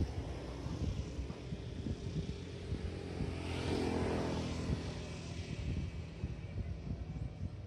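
A motor vehicle passes close by: its engine noise swells and fades about three to five seconds in. Wind rumbles on the microphone throughout.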